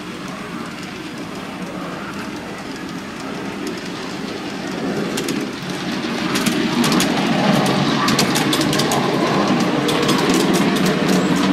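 Miniature ride-on Shinkansen train running along its track, getting louder about six seconds in, with rapid clicking from its wheels on the rails from about halfway.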